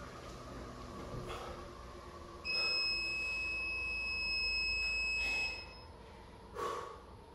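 Digital gym interval timer sounding one long, steady beep of about three and a half seconds as it reaches zero, marking the end of the 16-minute workout. A heavy breath follows near the end.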